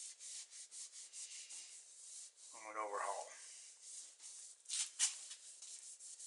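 Cloth rag rubbing inside the cylinder bores of a bare small-block Chevy 400 cast-iron block, a quick run of scratchy wiping strokes as the freshly honed bores are cleaned out.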